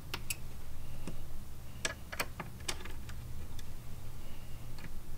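Light, sharp clicks, scattered irregularly, of a hand Allen wrench tightening the bolts into the T-nuts of a Goose Gear platform's front cover piece, over a low steady hum.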